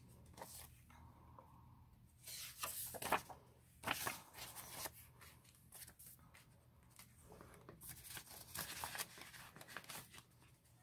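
Faint, intermittent rustling of paper banknotes and crinkling of a clear plastic binder pocket as bills are handled and slid into it.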